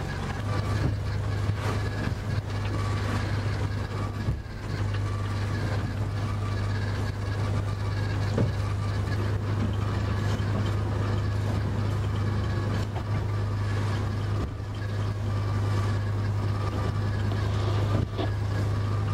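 Fishing boat's engine running steadily under way, heard from inside the wheelhouse as a low constant hum, with the choppy sea splashing against the bow and hull.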